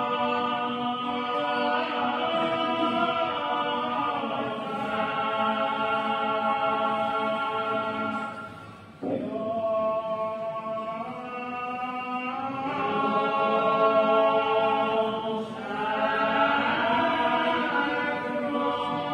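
A group of voices singing a slow chant-like hymn, with long held notes that slide between pitches. The singing fades briefly about eight seconds in and comes back in with a rising slide just after.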